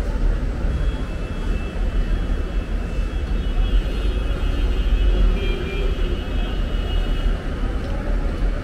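Steady low rumble of busy outdoor city ambience, with faint high-pitched tones through the middle.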